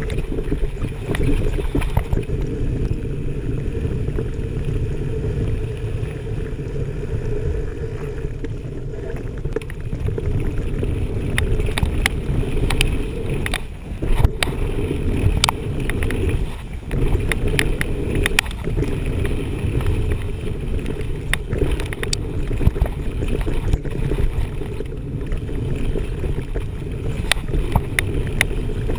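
Mountain bike descending a dirt trail at speed: a steady rumble of tyres and wind buffeting the microphone, with sharp clicks and knocks from the bike over bumps, more frequent in the second half.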